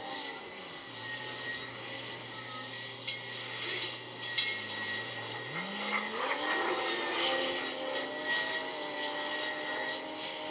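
Heavy diesel machinery working: an engine holds a steady low note, then revs up about halfway through and stays higher. A burst of sharp metallic clanks comes about a third of the way in.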